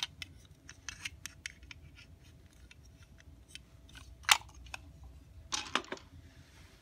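Light clicks and taps of small plastic toy pieces being handled, with one sharper click about four seconds in and a quick run of clicks near the end.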